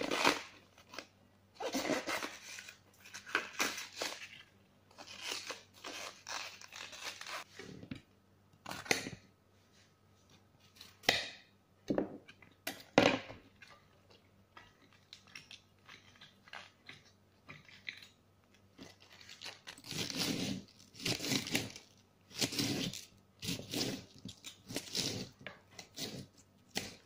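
Crisp cabbage leaves being torn and broken apart by hand, crunching and crackling in irregular bursts with a few sharper snaps.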